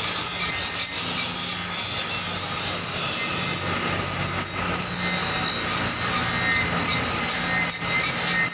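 Electric bench grinder running with a bolo knife blade held against its wheel: a steady hiss of steel on the wheel over the motor's hum. The hiss thins about three and a half seconds in as the pressure on the blade changes.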